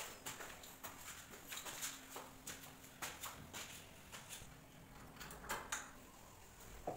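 Faint footsteps going up indoor stairs: a series of light, irregular taps, with a slightly louder knock near the end as a door is reached.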